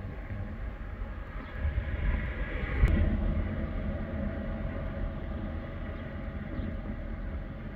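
A vehicle going past: a low rumble that swells to a peak about three seconds in and then eases off, with one sharp click at the peak.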